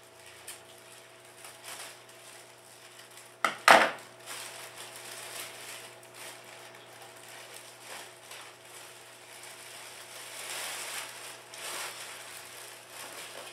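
Clear plastic wrap crinkling and rustling as it is pulled off a bouquet, with a sharp double snap or knock about three and a half seconds in.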